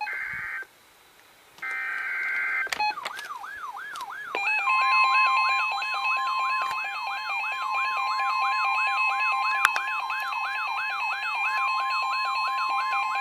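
Emergency alert broadcast tones: two short screeching digital header bursts, then a fast warbling tone rising and falling a few times a second, joined about four seconds in by a steady alert tone and several higher steady tones layered together, as used to open a weather warning.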